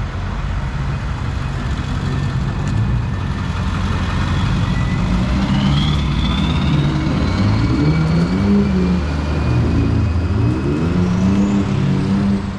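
Motor vehicle engine revving up and down repeatedly in the snow, with a high whine that climbs slowly in pitch: a vehicle working for grip on slushy snow.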